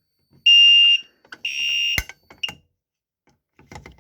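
Fire alarm horn sounding loud pulsed high beeps, two in quick succession about half a second each. A sharp click comes about two seconds in, after which the horn stops apart from one short chirp.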